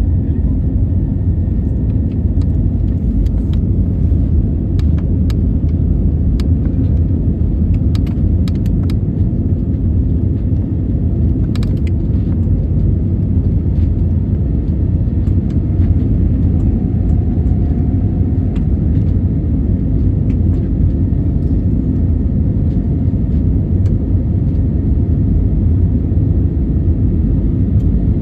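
Airliner at takeoff: a loud, steady, low rumble of jet engines and airflow, with scattered light clicks and rattles in the first half.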